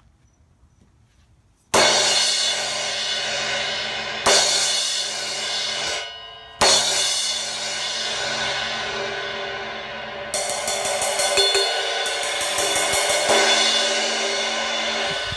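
Zildjian Medium Thin Crash cymbal struck several times, each crash ringing on and washing into the next, with a quick run of rapid strikes past the middle. This is the cymbal after a crack repair, with the cracked part of its edge cut away.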